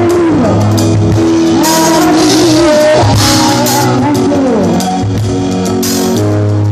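Live gospel worship music: a drum kit played with cymbal crashes, under a steady bass line and a wavering sung melody.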